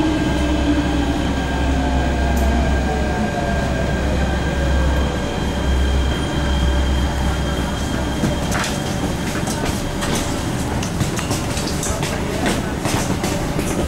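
MTR K-Train slowing in a tunnel, heard from inside the car. The motor whine falls in pitch and a heavy low rumble runs through the first half, then from about eight seconds in the wheels click sharply over rail joints at low speed.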